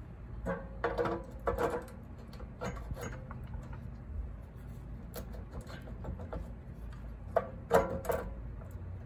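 Metal parts of a cut-off saw clicking and clanking as the cutter arm, with its drive belt and blade guard, is worked onto the powerhead's mounting studs. A few sharp knocks ring briefly, and the loudest come near the end, over a steady low hum.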